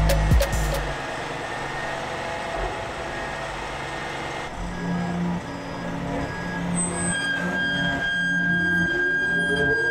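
Kenworth T880 hook truck running its Palfinger T-50 hooklift hydraulics as the hook arm sets a roll-off dumpster down. The mechanical running is steady, and a whine rises in pitch near the end.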